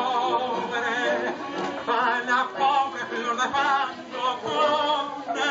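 Recorded dance music with a singer whose voice wavers with a strong vibrato.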